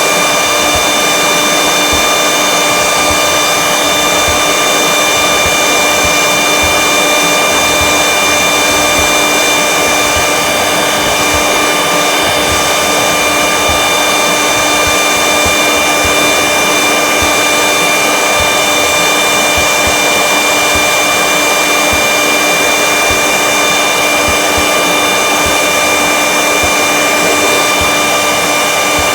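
Electric heat gun blowing steadily, a rush of air with a constant motor whine over it, heating a fitting to loosen a cap.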